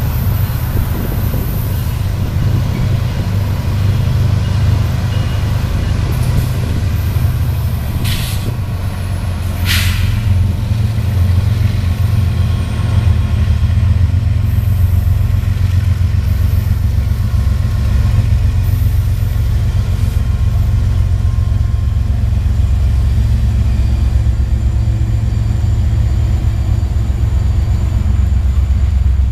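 Union Pacific freight train's diesel locomotives rumbling as they come up and pass close by, then the freight cars rolling past on the rails. Two short hisses sound about eight and ten seconds in.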